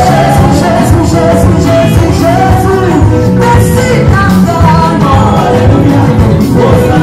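Loud music with singing voices over a steady beat and strong bass.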